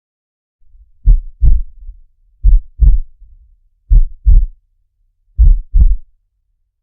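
Heartbeat heard as four regular lub-dub pairs of low thumps, each pair about one and a half seconds after the last, a slow rhythm.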